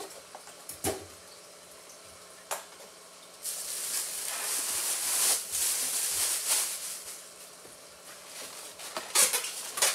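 Packing material being handled and pulled from a cardboard box: a few light knocks, then several seconds of loud, hissy rustling and scraping, and a run of clicks and taps near the end.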